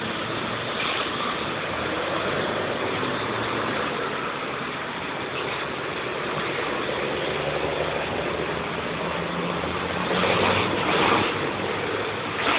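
A pickup truck's engine running amid steady road noise, growing louder for a moment about ten seconds in.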